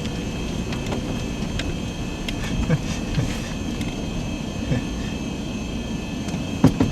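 Strong wind rushing through the forest trees, a steady low roar, with a few light knocks scattered through it.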